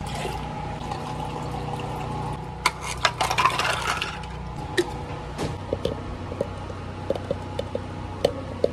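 Ice scooped from the ice bin and tipped into a plastic measuring cup of milk tea: a clattering rush about three seconds in. Light clinks and knocks of the metal bar spoon and plastic cup come before and after, over a steady background hum.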